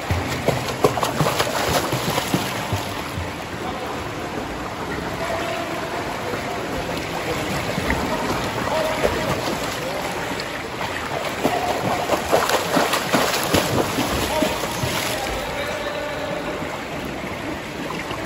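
A swimmer kicking and stroking through pool water, splashing and churning it, heaviest about a second in and again from about twelve to fifteen seconds in.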